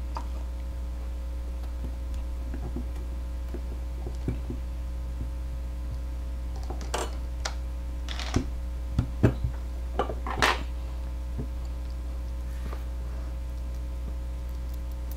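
Steady low electrical hum under a few soft clicks and taps, bunched in the middle, from hands and a plastic roller working Play-Doh on a tabletop.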